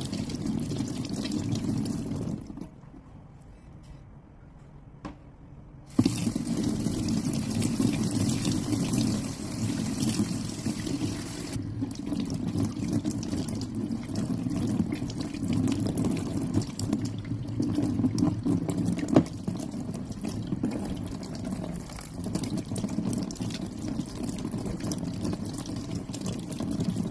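Kitchen tap running into a stainless steel sink, the water splashing over hands as vegetables are rinsed under the stream. The flow drops out about two and a half seconds in and comes back sharply about six seconds in.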